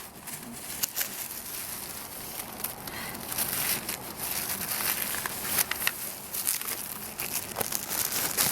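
Food wrapping crinkling and rustling as it is handled and folded, with many small sharp crackles that grow busier a few seconds in.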